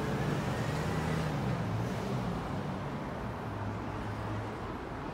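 Truck's diesel engine running steadily while driving, a low drone heard from the cab over road noise, easing off a little in the second half.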